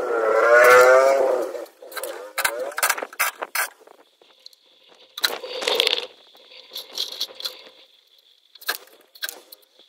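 Cordless drill-driver running in short bursts as it spins screws out of a welder's sheet-metal casing, its motor whine wavering in pitch as the trigger is worked. Sharp clicks and knocks of metal being handled come between the runs.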